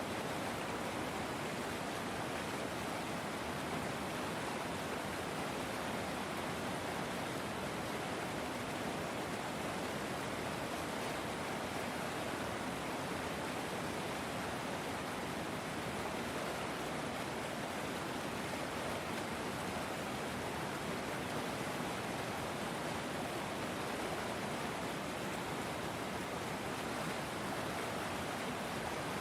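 River water flowing: a steady, even rush with no changes.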